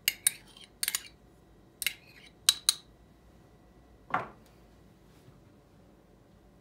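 A metal spoon clinking against a small ceramic ramekin as sauce is scooped out: a handful of sharp clicks over the first three seconds, then a brief softer scrape about four seconds in.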